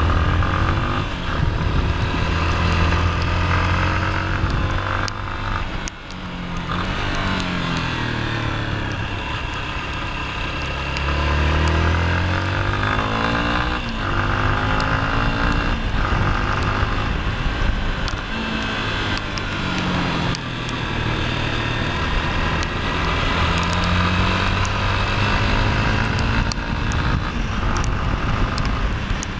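Yamaha XTZ 250 Lander's single-cylinder four-stroke engine under way, its pitch rising and falling again and again as the throttle is opened and closed, with brief drops about six and fourteen seconds in.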